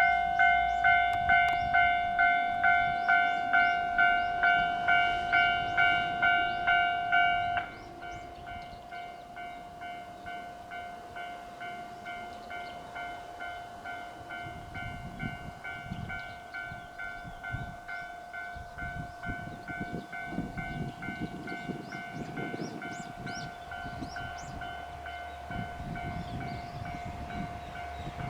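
Japanese level-crossing alarm ringing its repeated electronic ding at about two strikes a second. It turns suddenly much quieter about seven and a half seconds in but keeps ringing. From about the middle, the low rumble of a train passing over the crossing comes in under it.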